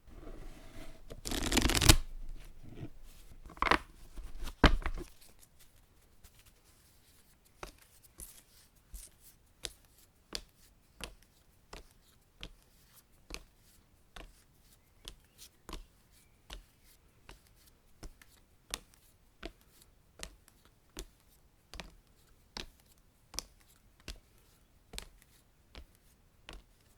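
A deck of playing cards being shuffled, loudest in a dense rush near the start. After that, single crisp card clicks follow one another at a steady pace, about one every 0.7 seconds.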